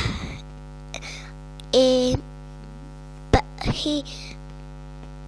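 Steady electrical mains hum on the recording. A short held voice sound comes about two seconds in, and a sharp click follows a little over a second later.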